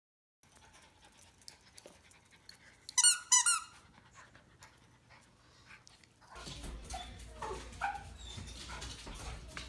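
Two puppies play-fighting, with two quick high-pitched yelping squeals about three seconds in. About six seconds in, a louder low room hum starts and a dog gives a few short whines.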